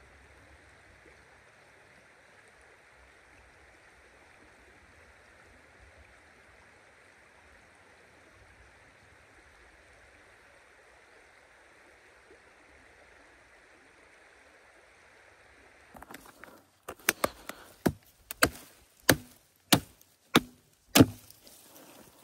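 A stream running steadily. About sixteen seconds in, this gives way to sharp, loud chopping strikes into firewood, about nine blows at one to two a second.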